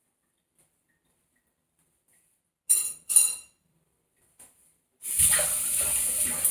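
Two quick metallic clinks, a spoon knocking against a steel vessel with a short ringing tone, then a stretch of hissing noise near the end.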